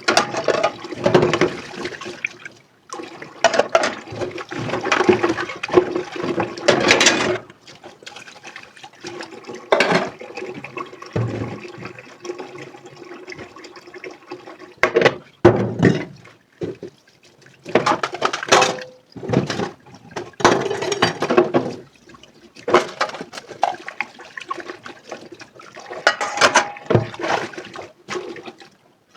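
Running water at a kitchen sink, starting and stopping in repeated spells as dishes are washed and rinsed, with a few sharp knocks of dishware in between.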